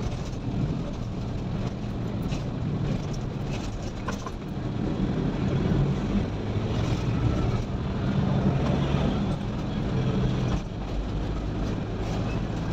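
Vehicle engine running and tyre noise heard from inside the cab while driving at low speed, a steady low drone that swells a little about halfway through.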